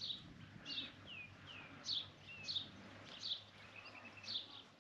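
Birds chirping: a sharp, high chirp that slides downward repeats about once a second, with softer, lower curving notes in between.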